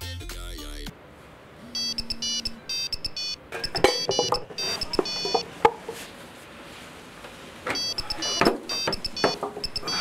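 Music cuts off about a second in. Then an electronic alarm beeps in quick high-pitched pulses, in two spells, with knocks and rustling from a bag and a cardboard box being rummaged in between.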